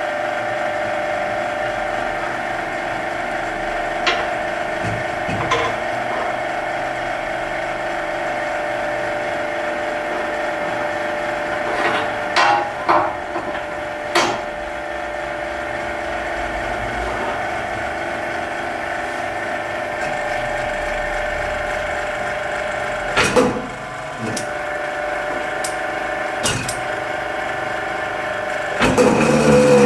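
A machine hums steadily, with scattered sharp knocks and clatter of parts being handled, and a louder mechanical surge with a sweeping pitch near the end.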